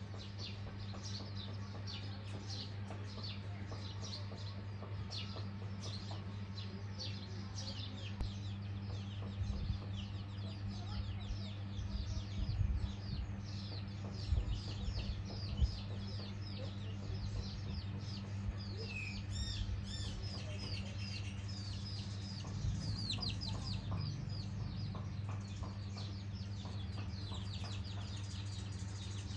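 Chickens feeding, with many short, high, falling peeps in quick succession and some clucking. A steady low hum lies underneath, and a few soft low knocks come now and then.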